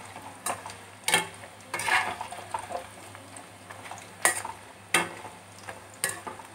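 Pakora pieces deep-frying gently in hot oil on a low flame, a steady sizzle in a steel kadai. About six sharp metallic knocks and scrapes come from a perforated steel slotted spoon against the pan as the pieces are turned.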